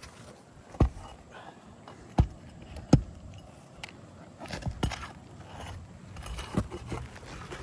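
Sharp metal knocks and scraping of roofing tools working under asphalt shingles to free the nails: three loud strikes about one, two and three seconds in, then lighter clicks and scraping.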